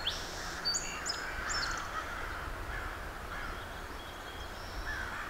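Birds calling outdoors: a few short high chirps in the first two seconds, and harsher calls repeating every second or so, over a steady low rumble.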